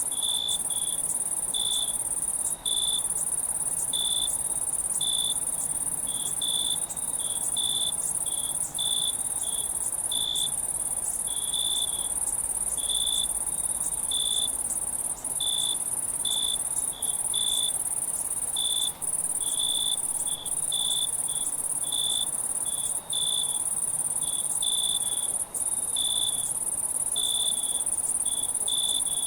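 Crickets chirping at night: a steady, high-pitched trill, with a lower chirp repeating irregularly about once or twice a second.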